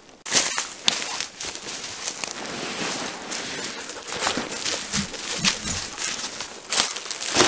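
Tarp fabric being handled and unfolded: continuous rustling of the sheet with many small sharp crackles, starting suddenly just after the opening.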